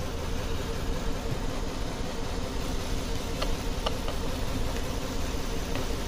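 A 2007 Lincoln MKZ's 3.5-litre V6 idling steadily while it carries a cylinder 2 misfire (code P0302), which is traced to weak current on the cylinder 2 coil's second spark.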